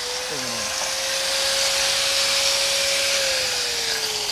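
Handheld electric angle grinder running against the edge of a 12-inch iron dosa tawa: a steady motor whine under a hissing grind. It is dressing the rough edge of the iron to a bright, clean finish, and the motor's pitch sags near the end.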